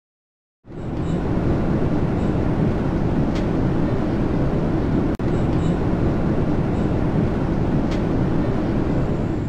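Airliner cabin noise: a steady, loud, low drone of engines and airflow that cuts in suddenly just under a second in. It drops out for an instant a little past halfway.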